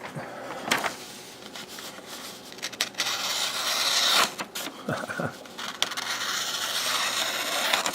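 Handling noise from unboxing a knife blade: rustling and scraping in two long stretches, with a few sharp clicks between them.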